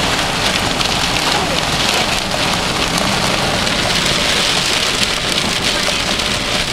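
Heavy rain and hail pelting a car's roof and windshield, heard from inside the cabin: a steady dense hiss packed with many small ticks of hits.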